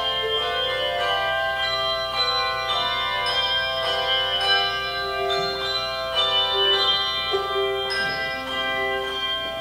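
Handbell choir playing a slow melody: a new bell is struck about every half second, and each note rings on under the next.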